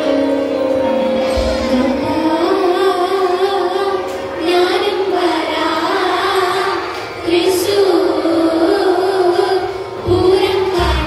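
School students singing a Malayalam melody into hand-held microphones, amplified over the hall's speakers. The tune wavers with vibrato and carries on after a held note at the start.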